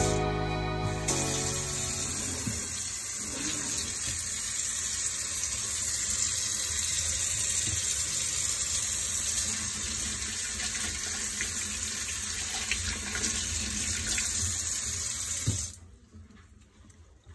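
Pull-down kitchen faucet running into a stainless steel sink: a steady rush of water that cuts off suddenly near the end as the tap is shut.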